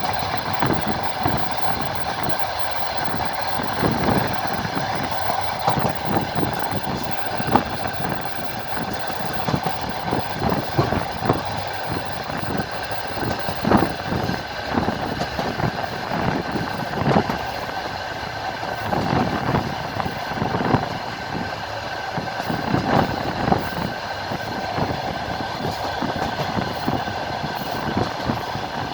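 Passenger train running along the line, heard from aboard: a steady rumble with the irregular knocking and clatter of its wheels over the rail joints.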